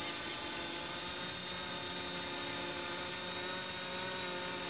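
F450 quadcopter drone in flight, its brushless motors and propellers giving a steady multi-toned whine.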